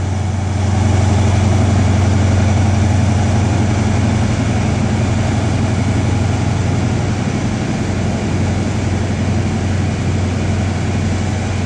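Diesel trains running at a station platform: a steady, loud, low engine hum as a Class 43 High Speed Train pulls away, with a GWR IET standing alongside. The hum eases slightly in the last few seconds.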